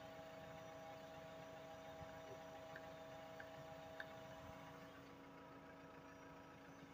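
Near silence with a faint steady hum and a few faint ticks.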